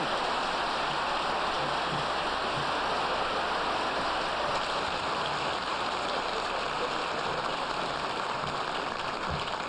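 Large audience applauding: many hands clapping in a dense, even patter that eases off slightly near the end.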